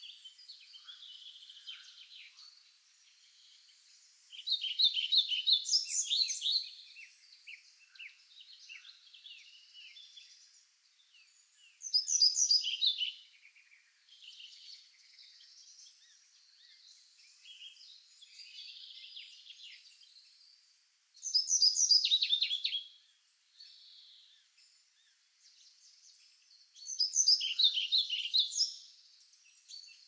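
Wild songbirds singing: one bird gives a loud, trilled song phrase of about two seconds four times, every six to nine seconds, over fainter chirping from other birds.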